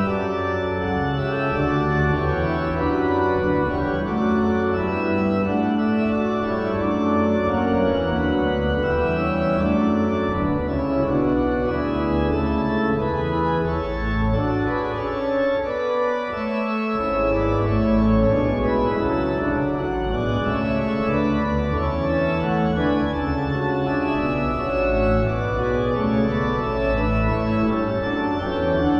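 Johannus Live III digital organ sounding its sampled Sauer organ from Leipzig, playing a fugal prelude in B minor. Several sustained voices move in slow-changing chords over a deep pedal bass, and the bass drops out briefly a little past halfway.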